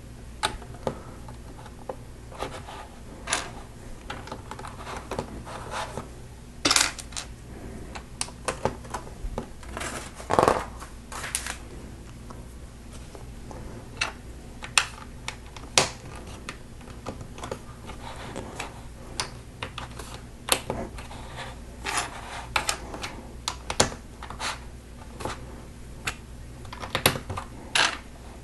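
LEGO plastic bricks and pieces clicking and rattling as they are handled and pressed together, in irregular sharp clicks over a steady low hum.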